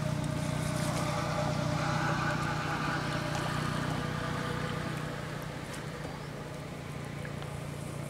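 A steady low engine hum, with fainter higher tones above it that fade out about five seconds in.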